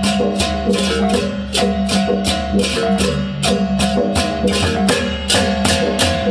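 Balinese baleganjur gamelan playing: ceng-ceng hand cymbals clashing about three or four times a second over kendang drums and bronze gong-chimes in an interlocking melody.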